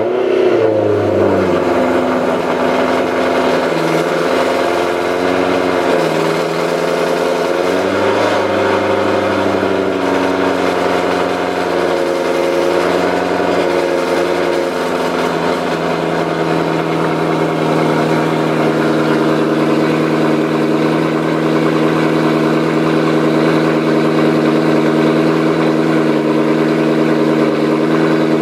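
BMW E92 M3's V8 engine idling just after a cold start: its pitch drops and wavers over the first several seconds, then settles into a steady idle about halfway through as it begins to warm up.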